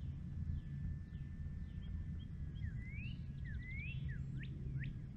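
Songbird calling: a run of short slurred rising and falling chirps and a brief buzzy trill, starting about halfway through, over a low steady rumble. A faint steady high whine, slowly dropping in pitch, is the distant electric motor of the RC E-Flite Air Tractor.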